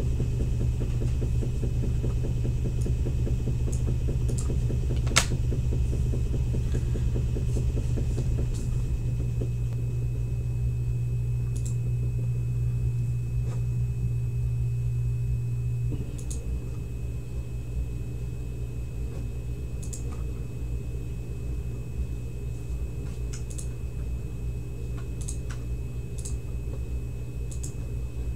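A steady low electrical hum with room noise, stepping down in level about halfway through, and a few scattered sharp clicks, the loudest about five seconds in.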